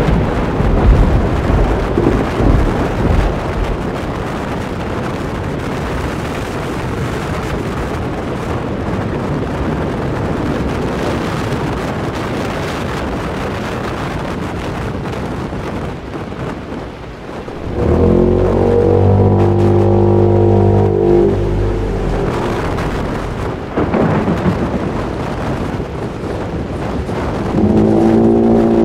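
Storm wind and rain, with thunder rumbling in the first few seconds. About two-thirds of the way through, a deep monster roar holds one pitch for about four seconds, and another roar begins near the end.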